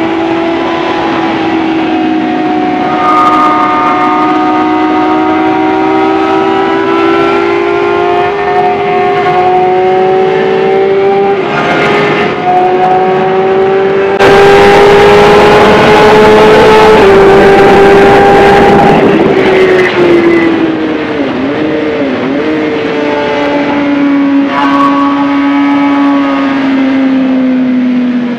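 2011 Suzuki GSX-R750's inline-four engine heard from the rider's seat, pulling hard down a straight with a gear change about twelve seconds in. A loud rush of wind noise swamps it at top speed in the middle. The engine then drops in pitch through downshifts under braking, settling lower near the end.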